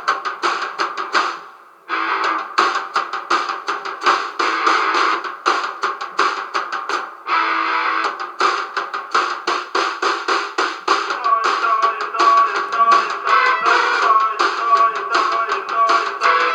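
A band playing guitar and drum kit with a steady beat, the music stopping briefly about two seconds in and again for a moment around seven seconds. The sound is thin, with little bass.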